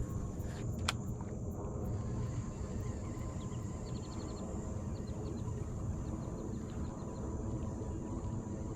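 Steady low rumble of wind on the microphone on open water, with a sharp click about a second in and faint trains of rapid ticking later on.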